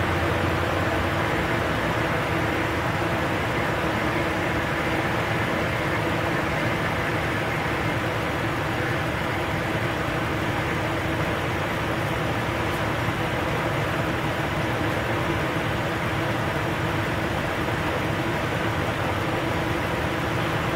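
A 2005 Dodge Ram's 5.7-litre Hemi V8 idling steadily while the steering is turned back and forth to bleed air from a newly replaced power steering pump.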